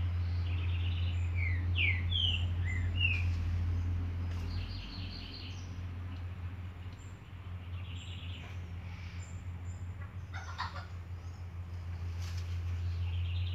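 High-pitched chirps and short twittering calls, several quick downward-gliding chirps early on and a fast run of repeated calls about four seconds in, with a few scattered calls later, over a steady low hum.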